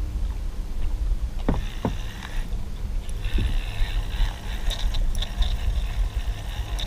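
Steady low rumble around a kayak on open water, with two sharp knocks about a second and a half in, and from about three seconds on the light ticking whir of a spinning reel being wound.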